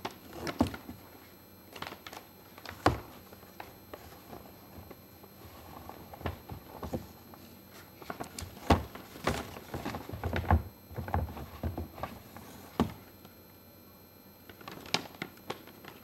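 A large stiff-cardstock origami model being handled and turned: irregular thunks and clicks of the paper, with a little rustling.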